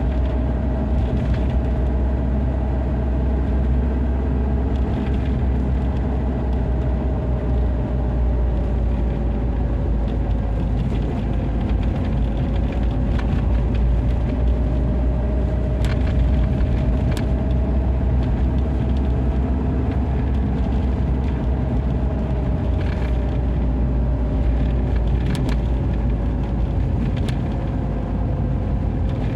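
LADA Niva Travel driving: steady low rumble of engine and road noise, with a thin whine that slowly rises and falls in pitch, and a few light clicks.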